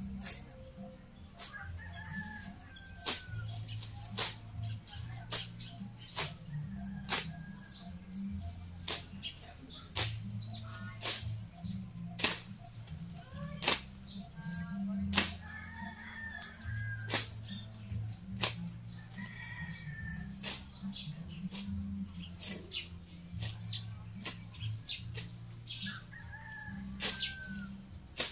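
A machete cutting through grass and weeds by hand in short, sharp strokes at an uneven pace, roughly one a second. Birds chirp faintly over low background music.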